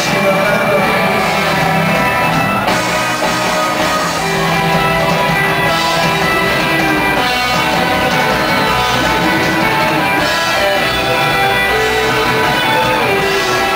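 A rock band playing live: electric guitar, drums and keyboard in a steady, loud full-band passage.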